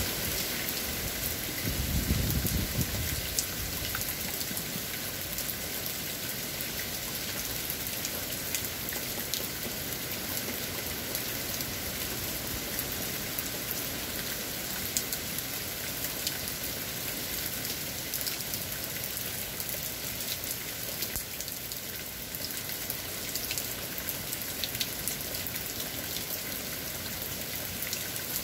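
Steady hurricane rain falling, with many sharp drop clicks throughout. A brief low rumble comes about two seconds in.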